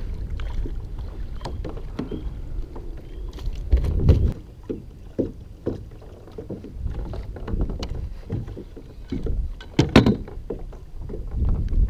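Water lapping against a plastic kayak hull under scattered clicks and knocks as a landing net and a freshly caught largemouth bass are handled on the kayak. There is a louder knock about four seconds in and a louder clatter around ten seconds, as the fish is lifted out of the net.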